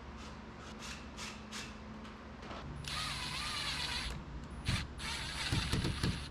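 Cordless drill driving screws into an aluminium seal track, in two runs of about a second each, the first about three seconds in and the second near the end. A few quick clicks come in the first second and a half.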